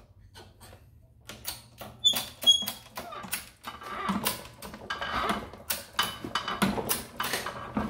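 Steel dies and fittings clinking and knocking on a hydraulic bench press as a coin ring is set on the die and pressed: a quick irregular run of sharp metal clicks, loudest about two seconds in.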